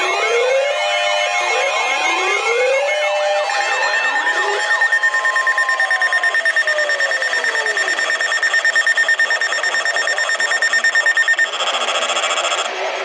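Several NOAA weather radios sounding their alert alarms at once: overlapping rising sweep tones for the first few seconds, then a steady high tone with rapid pulsing beeps. Part of the alarm chorus changes and cuts off shortly before the end.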